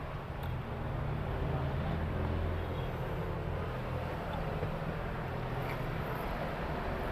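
A motor running steadily with a low hum over a background of noise, a little louder after about a second.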